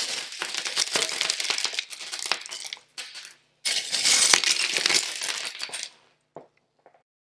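Many small plastic building bricks clattering and rattling onto a hard surface in two dense bursts of a few seconds each, then a couple of single clicks.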